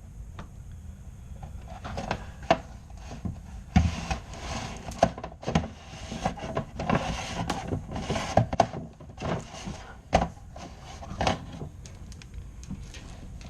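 Flexible dryer-vent cleaning poles worked by hand inside the vent duct, knocking and scraping against it: an irregular run of knocks and rustling scrapes, busiest in the middle.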